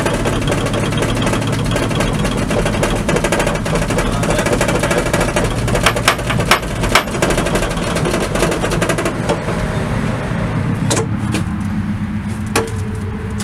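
A loose drive shaft under an engineless Subaru Legacy wagon clattering and banging against the ground and underbody as the car rolls, heard from inside the stripped cabin as a rapid, jackhammer-like rattle. Several hard knocks stand out about six and seven seconds in and again near eleven seconds, and the rattle eases toward the end. The drive shaft has come loose and is spinning free.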